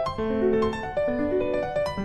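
Background piano music, a flowing melody of notes struck in quick succession.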